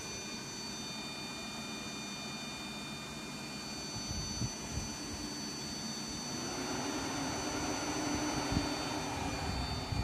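Electric blower fan and water-cooling pump of a DIY Peltier car air-conditioner running, a steady rushing sound with a thin high whine. A lower hum builds from about six and a half seconds in, and there are a few low bumps.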